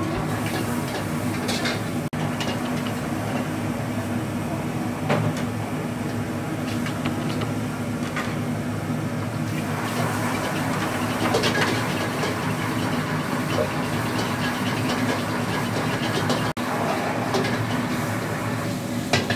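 Street-food kitchen cooking sounds: a steady low hum, likely a gas burner or exhaust fan, under a hiss of frying. Short clinks of metal utensils come here and there. The hiss grows louder about ten seconds in.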